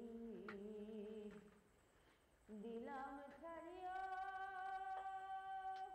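A single voice humming softly with no accompaniment. A low, wavering note fades out about a second and a half in. After a short pause a higher note slides up and is held steady until near the end.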